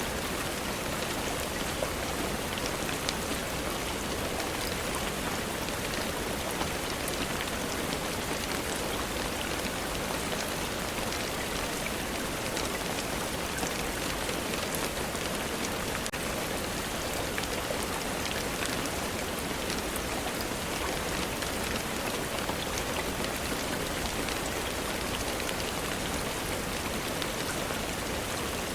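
Steady rainfall, an even hiss with scattered small ticks throughout.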